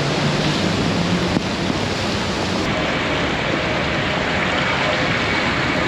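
Floodwater rushing across a road, a steady loud rushing noise.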